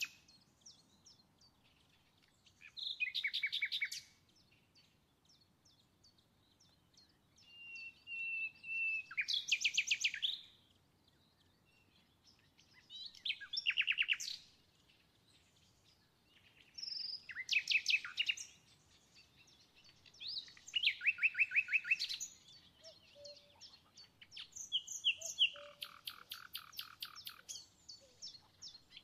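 A songbird singing in about six high, rapid trilled phrases, each lasting about a second and coming every few seconds, with one longer whistled note just before the second phrase.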